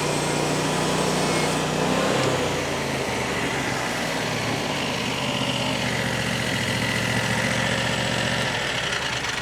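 Small gasoline engine of a Frontier OS35 portable bandsaw mill running steadily under load while the blade cuts through a large log; its note shifts slightly about two seconds in.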